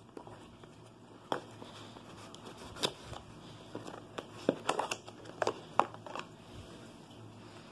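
Small cardboard phone box being cut open with a knife and its inner tray slid out: scattered sharp clicks, scrapes and crinkles, thickest and loudest from about four to six seconds in.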